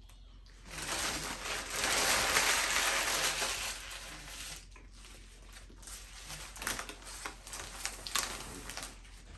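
A food wrapper being crumpled and crinkled for about three seconds, loudest about two seconds in, followed by faint scattered crackles.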